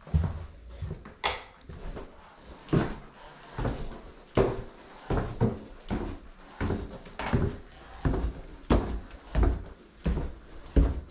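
Footsteps on a hard floor, one thud about every 0.7 s, at an even walking pace.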